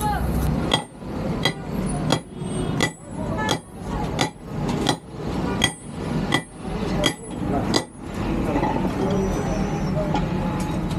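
Hand hammer striking hot metal on an anvil in a steady rhythm of about three blows every two seconds, each blow ringing. The hammering stops for about three seconds near the end, then starts again.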